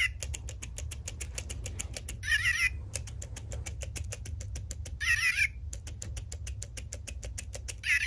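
Old Tomy Micro Pets robot cat's small toy speaker giving short warbling electronic chirps, repeating about every three seconds. Under them its mechanism makes a fast, even run of clicks over a low hum.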